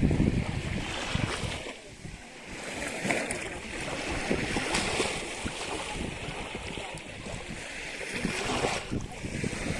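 Ocean waves washing in surges, with wind buffeting the microphone, strongest at the start.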